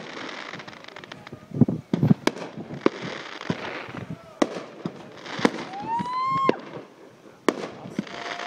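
Aerial fireworks display: a run of sharp bangs from shells bursting, with crackling between them. About six seconds in, a short rising whistle ends in a bang.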